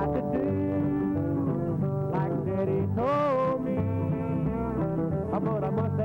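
Live country music: a man singing over a strummed acoustic guitar and a small backing band with a bouncing bass line.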